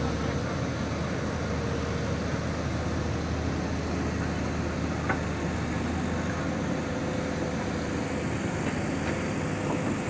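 JCB backhoe loader's diesel engine running steadily while it works its backhoe arm, with a faint steady whine over the engine hum. A single short knock about five seconds in.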